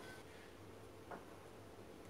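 Faint stirring of powdered sugar icing in a ceramic bowl with a silicone spatula, with one soft tap of the spatula against the bowl about a second in, over a low steady hum.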